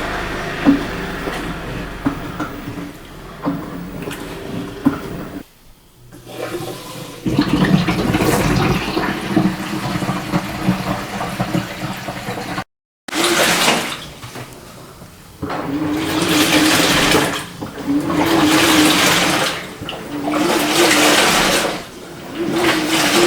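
Panasonic NA-FW80S1 top-loading washing machine washing: water rushing and sloshing in the tub. In the later part it comes in repeated surges about every two seconds, each with a low motor hum, as the pulsator agitates the load back and forth.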